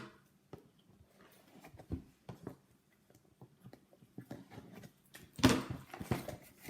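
Lego set box being handled and opened: light scattered clicks and rustles of cardboard and plastic, then a louder rustling burst about five and a half seconds in.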